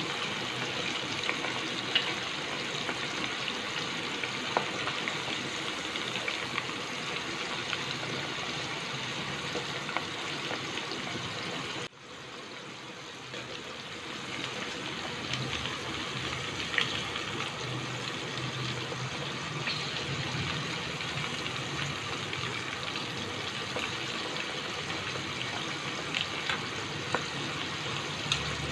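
Prawns deep-frying in hot oil: a steady sizzling hiss with scattered small pops. About twelve seconds in it cuts out sharply and comes back quieter, building up again over a few seconds.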